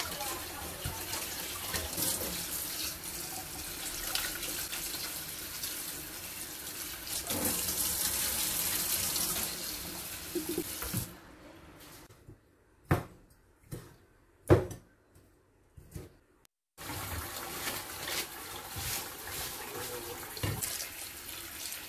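Tap water running into a stainless-steel sink while gonggong sea snails (dog conch) are rinsed in a metal strainer and pot. About eleven seconds in the water stops and a few sharp knocks sound; a few seconds later the water runs again.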